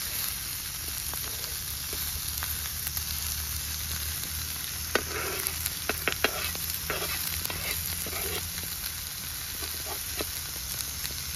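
Egg dosa sizzling steadily in oil on a flat tawa griddle. About halfway through come several sharp clicks of the metal spatula against the pan.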